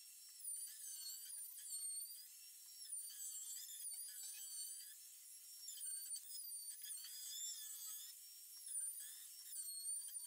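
Faint, high-pitched whine of a handheld trim router cutting along the edges of pine boards, its pitch dipping and recovering again and again as the bit takes load.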